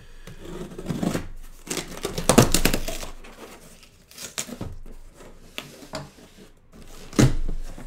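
Packaging being handled and torn open by hand: crinkling and tearing, loudest about two and a half seconds in, then a single thump near the end.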